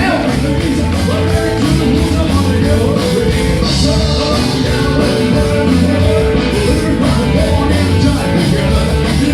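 A show band playing rock and roll at full volume, the drum kit keeping a steady beat under guitar and other instruments.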